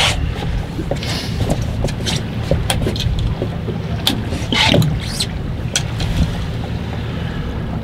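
Steady low rumble of a boat at sea, with scattered short clicks and knocks from handling on deck and one louder knock about four and a half seconds in.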